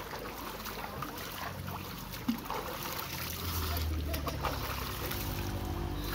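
Water splashing and sloshing as people standing waist-deep in a stream scoop and splash it over themselves, over a steady rush of flowing water.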